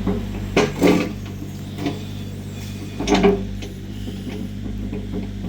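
An engine running steadily, with several sharp knocks or clunks: two in the first second, one about two seconds in, and a pair about three seconds in.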